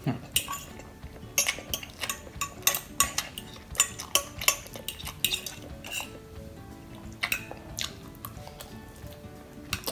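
Metal fork clinking and scraping against a glass baking dish while scooping up noodles: many short, sharp clicks at irregular intervals.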